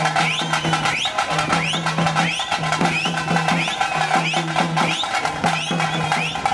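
Procession band music: steady, fast drumming under a low held horn note repeated in short phrases. Many short, shrill rising whistles sound over it.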